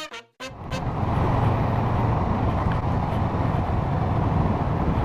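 Kawasaki ER-6n 649 cc parallel-twin running as the motorcycle rides along a street, mixed with steady wind and road noise; it comes in about half a second in, right after a last short stab of intro music.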